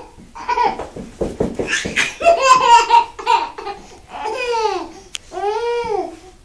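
People laughing in quick choppy bursts while playing with a crawling baby, then two long drawn-out voice sounds that rise and fall in pitch near the end.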